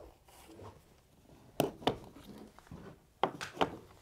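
Four sharp knocks in two quick pairs, the second pair about a second and a half after the first, over faint handling noise.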